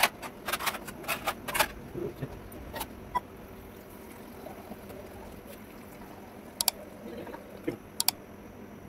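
Light clicks and taps as a thin metal wire and the small plastic parts of a DC water pump are handled. The taps come in a quick cluster in the first two seconds and a few more near the end, over a faint steady hiss.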